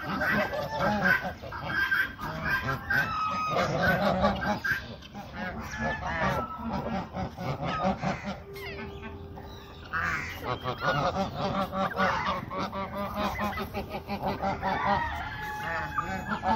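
A mixed flock of domestic geese and Indian peafowl calling over one another: a dense chatter of short honks, easing into a brief lull about halfway through.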